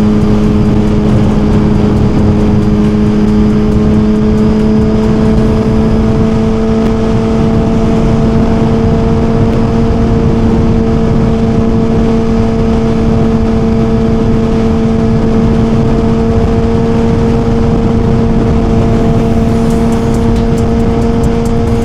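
Suzuki GSX-R1000 inline-four engine running at steady cruising revs, a constant drone whose pitch creeps up slightly and slowly, with wind rush underneath.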